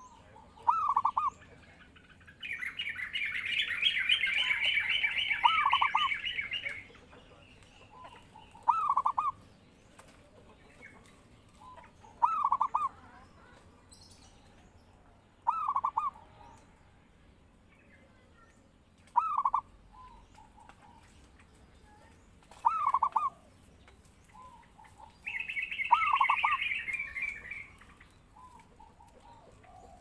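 Zebra dove (perkutut) cooing in short, evenly spaced phrases, eight of them about three and a half seconds apart. A higher, rapid trill from another bird runs for about four seconds near the start and again for about two seconds near the end.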